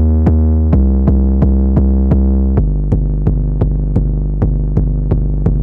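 Background electronic music with a steady drum-machine beat, about three hits a second, over a heavy sustained bass line that steps to new notes twice.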